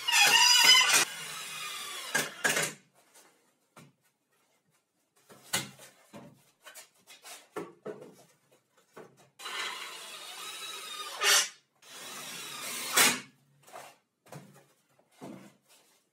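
Pine battens being slid against each other and knocked into place while a wooden frame is assembled: stretches of wood rubbing on wood, each ending in a sharp knock, with small clicks and taps between. A brief loud pitched sound comes right at the start.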